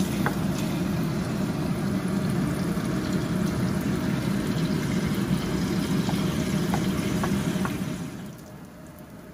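Meat stir-frying in a pan: a steady sizzle with a few light clicks, likely the spatula, dropping away about eight seconds in.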